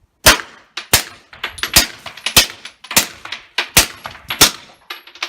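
Suppressed 9mm SIG P320 pistol with a Surefire Ryder suppressor firing seven shots in steady succession, about one every two-thirds of a second, the slide cycling normally with no jam. Lighter metallic clinks and pings fall between the shots.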